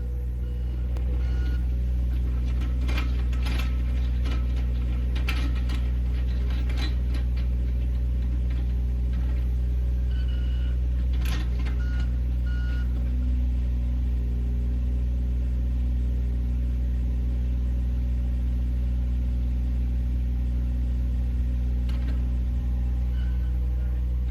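Diesel engine of heavy construction equipment running steadily, with metal clanks and knocks over it in the first half and a few short warning beeps a little before the middle.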